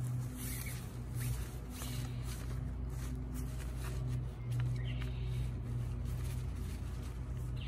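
Nylon tent fabric rustling and tent poles clicking as the poles are worked through the tent's sleeves and into the hubs, over a steady low hum.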